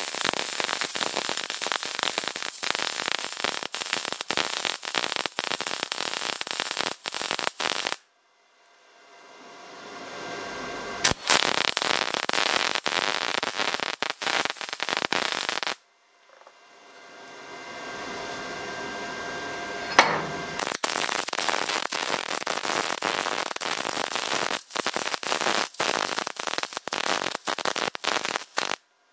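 Wire-feed MIG welder arc crackling and spitting steadily as a bead is laid on steel. The crackle breaks off twice, about a third and a half of the way through, and fades back in each time.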